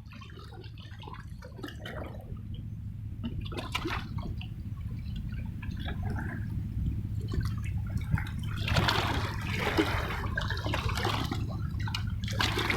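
Seawater lapping and splashing against breakwater rocks over a steady low rumble, with irregular splashes that get busier and louder in the second half.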